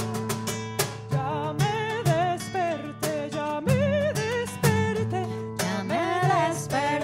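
Live acoustic music: a voice sings a wordless melody that slides and wavers, over strummed guitar and a low bass line.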